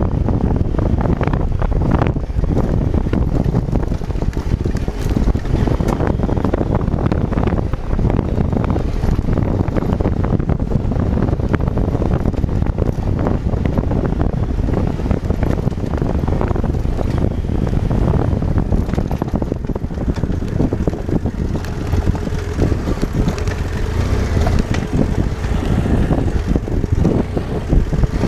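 Heavy wind noise on the microphone of a moving adventure motorcycle riding a gravel dirt road, with the bike's engine running underneath, steady throughout.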